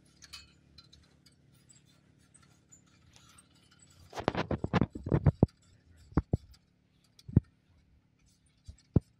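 A quick run of sharp metallic clicks and clinks lasting about a second and a half, then a few single clicks spaced out, from the hardware of a lattice antenna tower being raised by hand.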